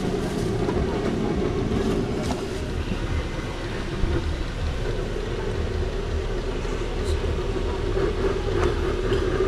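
Steady low rumbling noise, with a brief knock about four seconds in.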